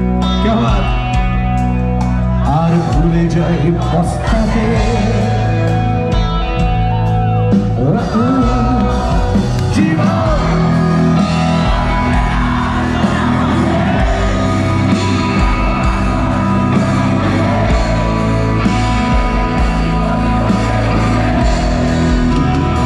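Live band playing a song with a lead singer over electric guitars, bass and drums, amplified through a large stage PA and heard from the audience.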